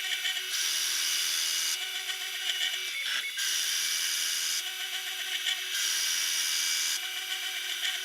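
A small electric power tool such as a drill running steadily, its sound stepping between a louder and a quieter phase about every second, with a brief break about three seconds in.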